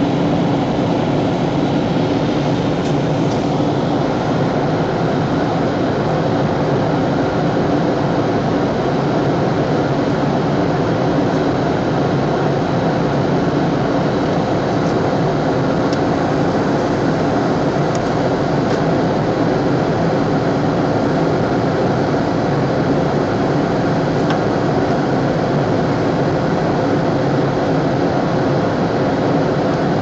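Steady cabin noise inside a Boeing 737 jet airliner on its landing approach: the even rush of the engines and the airflow past the fuselage, with a few faint steady hums in it.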